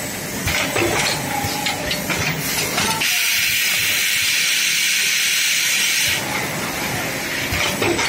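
Semi-automatic double-head cutting-disc making machine at work: light mechanical clatter and clicks, then about three seconds in a steady hiss of air that lasts about three seconds and stops, followed by more clatter.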